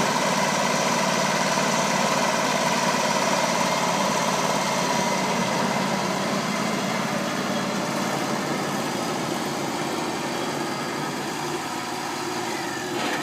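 Wood-Mizer LT35 portable band sawmill running, its engine a steady drone that grows slowly quieter.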